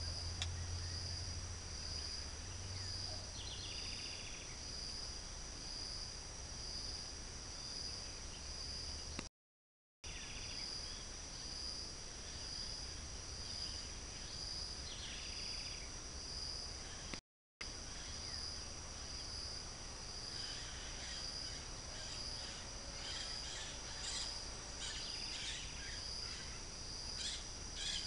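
Steady outdoor insect chorus: a high, shrill pulsing note over a continuous high drone. Short bird chirps come through now and then, more often near the end, and the sound cuts out briefly twice.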